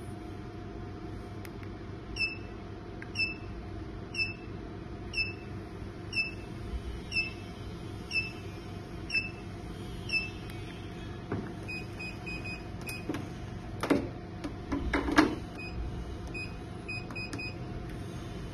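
BTL Exilis RF machine beeping about once a second while its treatment timer runs, over a steady hum from the unit. Later come quicker clusters of short beeps, and a few sharp knocks of handling, the loudest sounds, about two-thirds of the way through.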